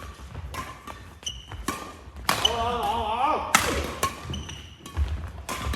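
Badminton rally on an indoor court: sharp racket strikes on the shuttlecock about once a second, with short shoe squeaks on the court floor. Near the middle comes a louder, wavering squeal.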